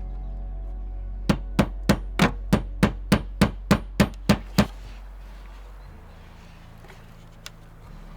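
About a dozen quick, sharp striking blows on wood, roughly three a second, from hand-tool woodworking, ending after a few seconds. A steady background music drone runs beneath.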